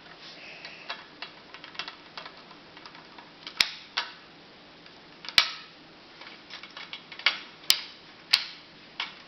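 Plastic magnetic building tiles clicking and snapping together as they are fitted edge to edge, a scatter of irregular sharp clicks with a few louder clacks.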